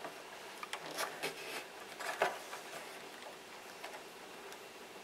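A few faint clicks and rubbing as small plastic servo plug connectors are handled and pushed together, the orange cable being plugged onto the rudder servo lead.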